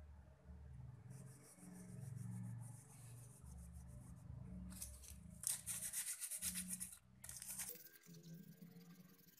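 Aluminium foil rubbed quickly back and forth over a TV remote's circuit board, a faint rapid scrubbing in two spells, the second longer and louder. The board and foil are wet with water, and the scrubbing cleans dirt off the key contact pads that stops the buttons from working.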